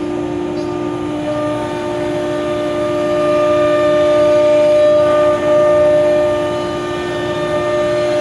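Thermwood Model 45 CNC router's spindle running with a steady whine as the bit cuts around the perimeter of a wood part, a higher tone joining about a second in.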